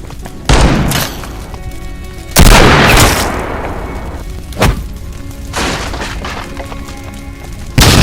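Background music punctuated by a series of sudden booming impact sound effects, roughly every one to two seconds; the loudest comes about two and a half seconds in and dies away slowly, and a short sharp hit lands near the middle.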